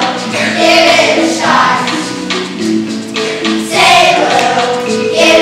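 A group of children singing a song together, with sung notes held and changing in pitch.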